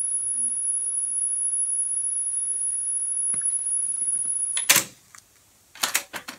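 Pioneer cassette deck playing a high-pitched alignment test tone off a test tape over steady tape hiss, during playback-head azimuth adjustment. The tone cuts off suddenly with a click about three-quarters of the way through. A few sharp mechanical clicks follow near the end.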